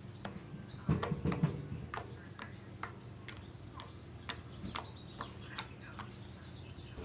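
A run of sharp clicks, about two a second, with a brief rustle of handling near the start.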